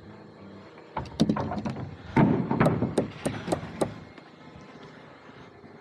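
Framing hammer knocking on lumber: a quick, irregular run of a dozen or so sharp wooden knocks, about three or four a second, stopping just before four seconds in.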